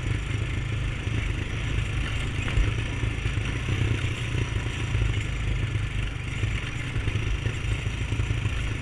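Single-cylinder Honda ATV engine running steadily under way on a trail ride.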